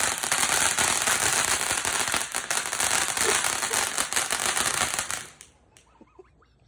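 Fireworks going off in a dense, rapid crackle of small bangs, stopping abruptly about five seconds in.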